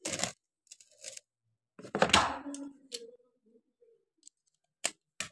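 Metal clicks, scrapes and knocks from a marble cutter being handled and opened up, with a louder clatter about two seconds in that rings briefly.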